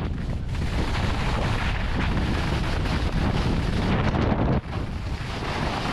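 Wind rushing over the microphone of a skier's body-mounted camera during a fast descent, mixed with skis sliding on the snow. There is one brief drop in loudness a little past halfway.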